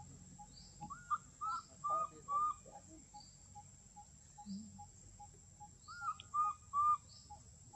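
Baby macaque giving short, high-pitched arched cries, a run of four and then another run of three, calling for its mother.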